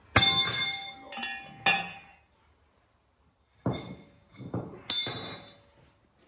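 Hammer blows on steel while driving a seized steering ram out of a Steyr CVT tractor's front axle: about six sharp, ringing metal clanks in two groups of three, with a pause of about a second and a half between them.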